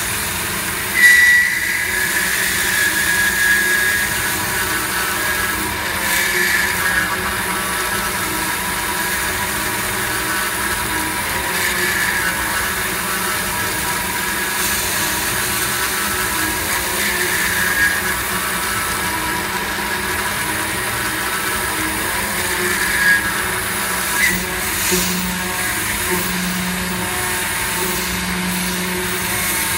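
CNC milling machine spindle running with an end mill cutting into a metal block under flood coolant: a steady machining noise with a high cutting whine that swells and fades every five or six seconds as the cutter moves through its path. There is a sharp louder sound about a second in.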